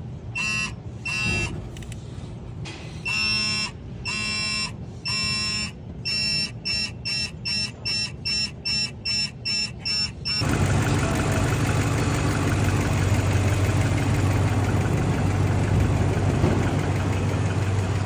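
Electronic warning chimes from the truck's dash, a few longer tones and then quick beeps about twice a second; about ten seconds in, the Dodge Ram's 5.7 L Hemi V8 starts and settles into a steady idle, the misfire repaired with new pushrods.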